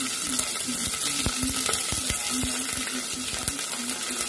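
Chopped onions and cumin seeds sizzling in hot oil in an aluminium pressure cooker, a steady hiss with frequent crackling pops.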